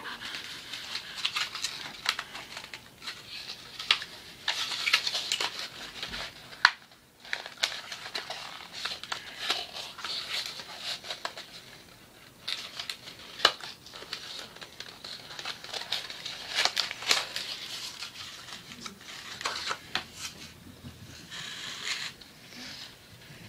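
Packaging of a rugged iPod case being handled and pulled apart: irregular crinkling and rustling with sharp plastic clicks, the loudest about seven and thirteen seconds in.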